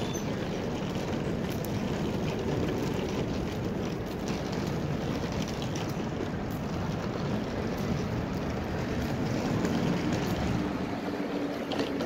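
City street ambience: a steady low rumble of traffic.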